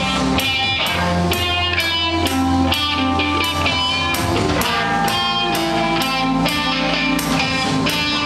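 Live band playing amplified music: guitar over a bass line and drums keeping a steady beat of about two hits a second.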